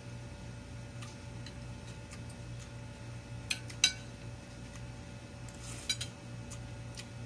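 Metal spoon and fork clinking and scraping against a ceramic plate and bowl while eating, with a few sharp clinks about three and a half seconds in and again near six seconds, over a steady low hum.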